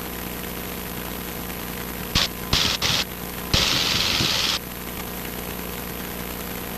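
Cessna 150's four-cylinder Continental O-200 engine running steadily, heard from inside the cabin. About two seconds in, four short bursts of loud hiss cut in and out sharply, the last and loudest lasting about a second.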